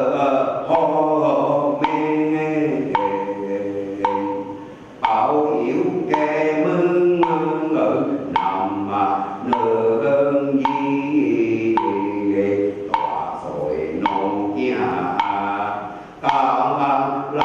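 Voices chanting a liturgy together in long sung phrases, kept in time by a wood block struck about once a second; the chant breaks briefly twice between phrases.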